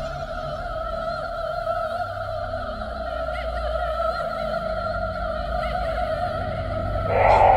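Electroacoustic film score: a sustained, wavering tone held on one pitch over a low pulsing rumble, with a louder, noisier swell near the end.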